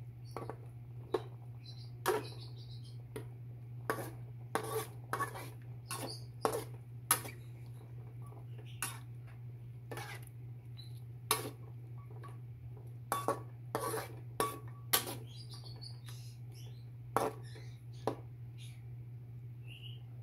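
A metal utensil knocking and scraping against the cooking pot in irregular clinks as the simmering pork and bottle gourd are stirred, over a steady low hum.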